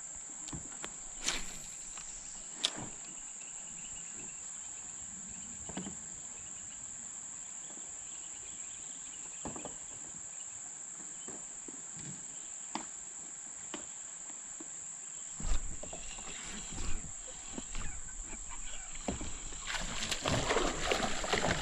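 Steady high-pitched insect drone, with a couple of sharp clicks within the first three seconds. From about fifteen seconds in, a hooked smallmouth bass thrashes and splashes at the water's surface, loudest in the last two seconds.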